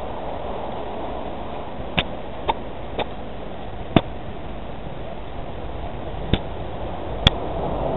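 Steady rushing noise with six short, sharp clicks at uneven intervals: a dog-collar camera knocking and rubbing as the dog noses through dry grass and fallen leaves.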